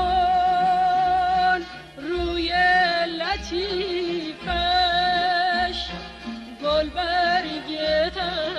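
Old Persian classical song: a woman sings long held notes with wavering ornaments, phrase by phrase, over instrumental accompaniment.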